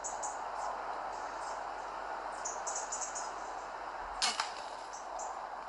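A PCP air rifle shot about four seconds in: a sharp crack with a second smack a moment after, over a steady outdoor hiss.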